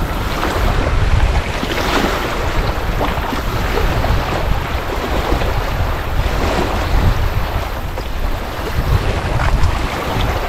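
Wind buffeting the microphone in a steady low rumble, with small lake waves washing onto a sandy beach.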